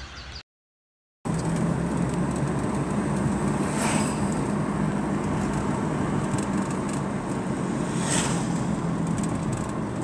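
Steady engine and road noise inside a moving car, with two short hissy flares about four and eight seconds in. It starts after about a second of dead silence near the beginning.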